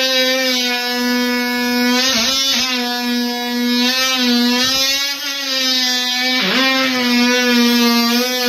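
DeWalt oscillating multi-tool running and cutting into a vanity cabinet's frame: a loud, steady whine whose pitch sags briefly twice as the blade bites.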